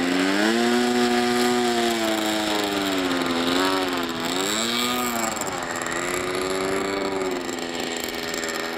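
Single-cylinder nitro glow engine of an RC pattern-ship model plane running on the ground. Its pitch rises about half a second in, dips and comes back up twice around the middle as the throttle is worked, then holds steady.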